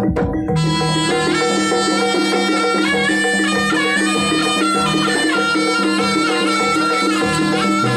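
Live jaranan (kuda lumping) ensemble music. About half a second in, a shrill double-reed trumpet (slompret) comes in with a bending, ornamented melody over a steady repeating gamelan pattern and drums.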